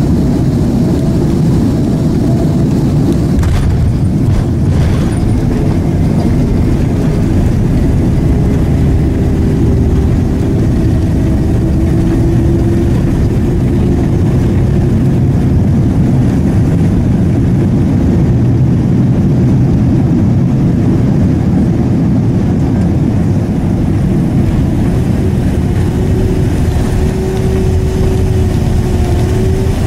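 Boeing 767 landing rollout heard from inside the cabin over the wing: a loud, steady rumble of engines and rushing air, with a few faint knocks about four seconds in.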